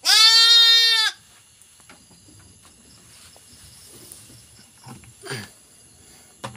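A sheep bleats once, loud and quavering, for about a second. After that there are only faint shuffling sounds and a softer short call about five seconds in.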